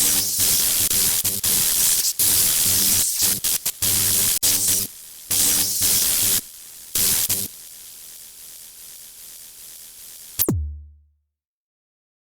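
Electronic intro music: a drum-machine beat with loud bursts of static-like noise that cut in and out, ending about ten seconds in on a single low hit that dies away into silence.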